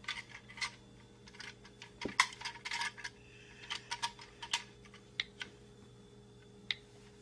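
Scattered light taps and clicks of a finger pressing symbols on a tablet's AAC communication app, bunched about two seconds in and again around four seconds, over a faint steady hum.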